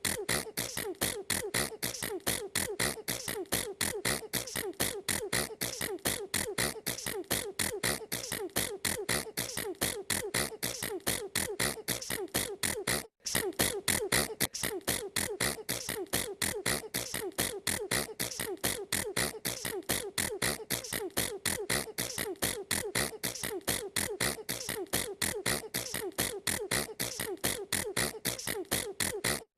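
A girl sneezing over and over as short, sharp bursts at a steady pace of about three a second, with one brief break about 13 seconds in.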